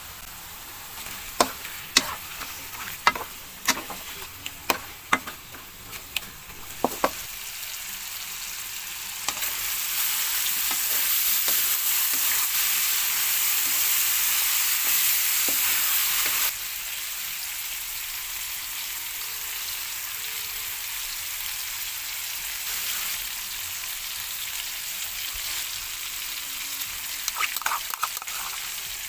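Food sizzling as it fries in oil in a pan, with a cooking utensil clacking against the pan several times in the first seven seconds and a few more times near the end. The sizzle grows louder about nine seconds in and drops suddenly about sixteen seconds in.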